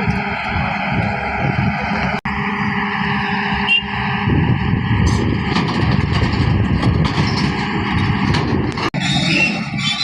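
A vehicle engine running steadily. The sound cuts out abruptly for an instant twice.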